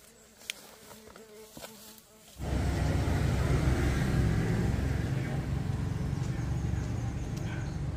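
Faint footsteps and light clicks in undergrowth, then about two and a half seconds in a loud, steady, low buzzing drone starts suddenly and carries on.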